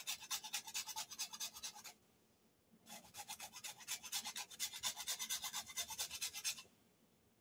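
Whole nutmeg rubbed back and forth on a small flat metal grater: quick scraping strokes, about six a second, in two runs with a short pause about two seconds in.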